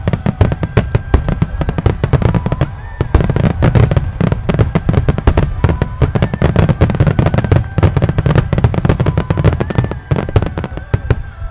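Wide starmine fireworks barrage: rapid-fire shells and mines bursting in a dense, continuous string of bangs over a heavy low rumble, dropping off at the very end.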